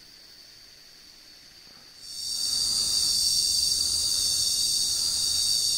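Cicadas buzzing in a steady, high-pitched drone that swells in loudly about two seconds in, over a faint high insect hum before it.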